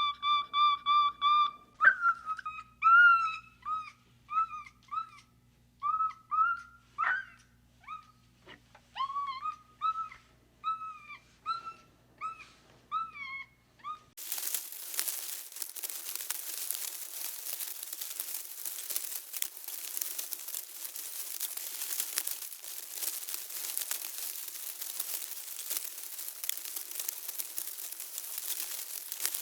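A run of short whistled animal calls, about one a second, each with an arching pitch. About halfway through it cuts abruptly to a dense, continuous crackling rustle.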